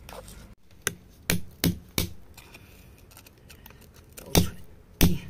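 A metal chisel chipping at rock, struck in sharp knocks: a quick run of four in the first two seconds, a pause, then two more near the end.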